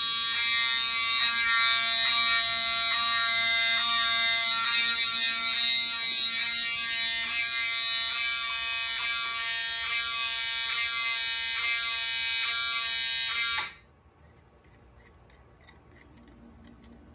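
Several fire alarm notification appliances sounding together out of step, a dense electronic tone with a regular pulsing rhythm, set off by a pull station. It cuts off suddenly a few seconds before the end, leaving faint room tone.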